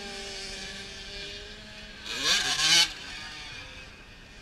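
Motocross bike engines running on a dirt track, a steady drone at first. About two seconds in, one bike revs sharply with a rising pitch for under a second, the loudest sound here.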